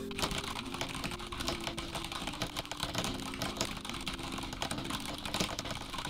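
Fast touch-typing on a mechanical keyboard with Cherry MX Brown tactile switches (IQUNIX L80 Formula Typing): a dense, continuous clatter of keystrokes.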